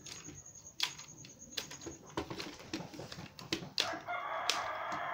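Sharp clicks and knocks of a Yunteng video tripod's plastic and metal leg clamps and joints being handled. About four seconds in, a rooster crows for about a second and a half, its call falling at the end.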